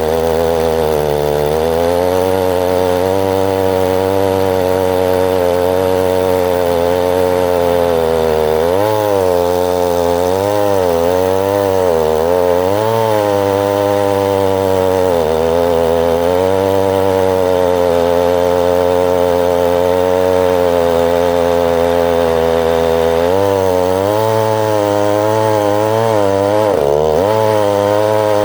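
Two-stroke Stihl chainsaw cutting through a large red oak log, running at high revs. Its pitch sags and recovers several times as the chain loads up in the cut.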